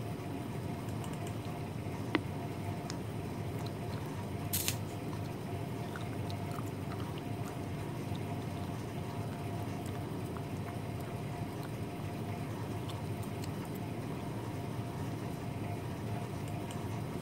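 Steady background hum and hiss of room noise, with a couple of brief clicks, one about two seconds in and another about four and a half seconds in.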